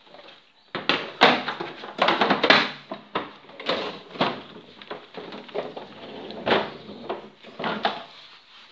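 Plastic body of an electric lawn mower being handled and shifted about on a tiled floor: a series of irregular knocks, clatters and scrapes.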